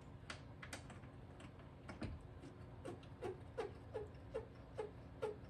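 Ratchet wrench clicking, a few scattered clicks and then an even run of about three sharp clicks a second, each with a short metallic ring, as bolts on the Jeep TJ's liftgate hinges are turned.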